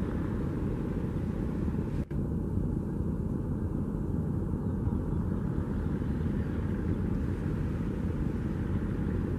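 Steady low rumble of large river passenger launches' engines under way, with no distinct events; the sound briefly drops out about two seconds in, at an edit.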